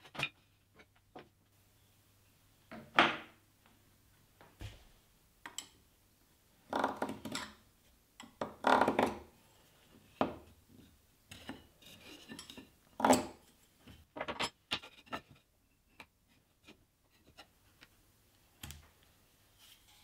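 Pine pieces and metal marking tools being handled on a wooden workbench: scattered knocks, taps and short scrapes as wood and tools are picked up, slid and set down, the loudest a few seconds in and around the middle.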